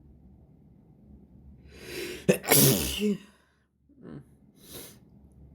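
A person sneezing once from a tickling nose: a rising inhale, then one loud, sharp sneeze a little over two seconds in, followed by two short breaths.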